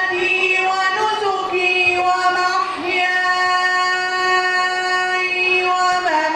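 A boy's voice reciting the Quran in melodic tajwid style into a microphone, drawing out ornamented notes. About halfway in he holds one steady note for about two seconds, then makes a short melodic turn near the end.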